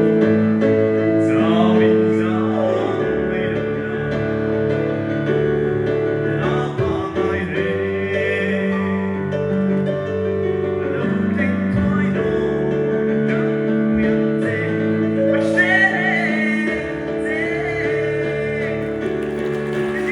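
Music: a song sung over held keyboard chords, with a male voice among the singers.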